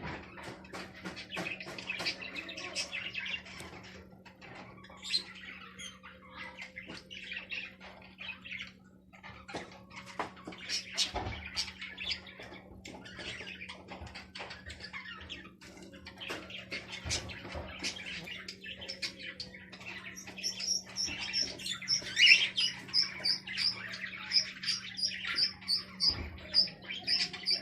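Small birds chirping and squawking, many short high calls overlapping. In the last few seconds one bird keeps up a quick, even run of high chirps, about three a second. A steady low hum runs underneath.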